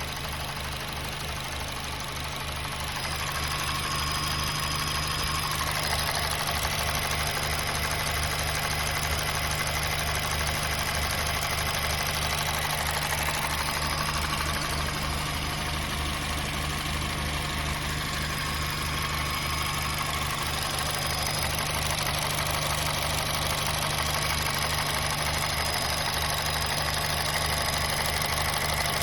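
2007 Honda Fit GD3's 1.5-litre four-cylinder engine idling steadily, with its valvetrain noise audible; the intake and exhaust valve clearances have just been adjusted back into spec. It gets a little louder about three seconds in.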